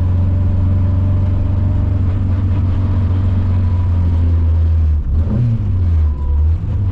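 Simca Rallye 2's engine running hard under load with a steady, loud note. It briefly lets up about five seconds in before pulling again.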